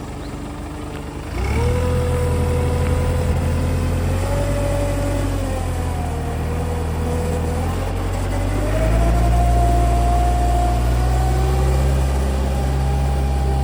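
New Holland 555E loader backhoe's diesel engine running. About a second and a half in it is throttled up and gets louder, with a whine that shifts in pitch as the machine works, and it rises again around nine seconds.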